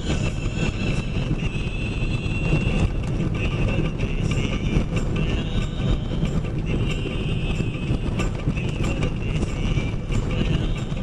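Cab noise of a box truck on the road: a steady low engine and road rumble with irregular knocks and rattles running through it.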